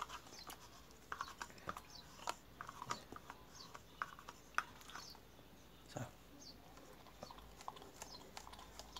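Small plastic clicks and crackles from an ice-cream cup being handled and pushed up, with a dog licking at the cup near the end.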